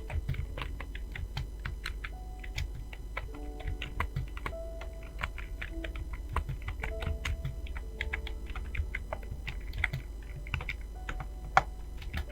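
Fast, continuous typing on a computer keyboard: a quick, irregular stream of keystroke clicks, several a second.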